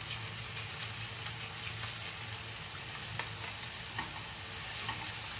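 Chopped spinach and onion sizzling in olive oil in a frying pan as the spinach wilts, a steady hiss with a few faint clicks.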